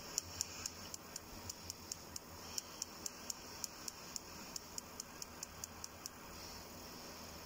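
Spark igniter of a Truma 3002 gas heater burner clicking steadily, about three to four sparks a second, then stopping about six seconds in. The stop is the ionization electrode sensing flame (here a torch flame held on it) and cutting off the sparking.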